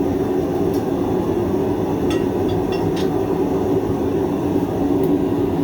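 Forge running with a steady, even roar, with a few faint light metallic clicks about two to three seconds in.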